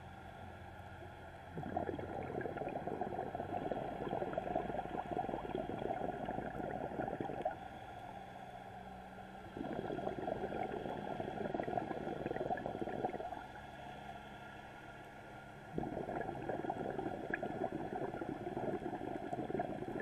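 Scuba diver's breathing underwater: three long bursts of exhaled regulator bubbles, each several seconds long, with shorter, quieter inhales between them that carry a low steady hum.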